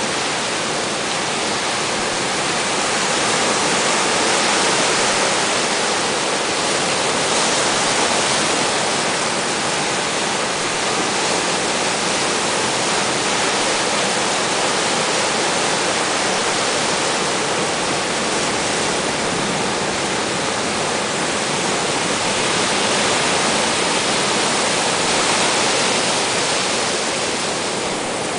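Heavy hurricane-driven surf breaking: a steady roar of waves and foam that swells slightly a few times as sets come in.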